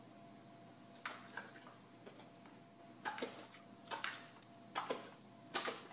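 Siberian husky making a few short, faint sounds, spaced about a second apart.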